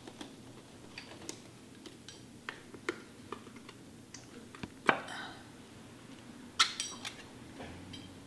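A run of small clicks and metallic taps as gloved fingers pick and fumble at the top of a metal can, with a sharper click about five seconds in and a quick cluster of clicks near the seven-second mark.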